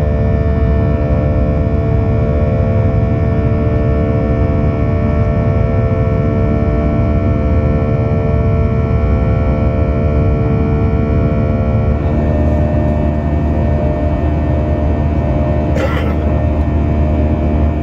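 Boeing 737's CFM56-7B turbofan engine running in flight, heard from a cabin seat over the wing: a steady drone with a stack of high, level fan tones. About twelve seconds in the high tones thin out to a lower cabin hum, and a short click sounds near the end.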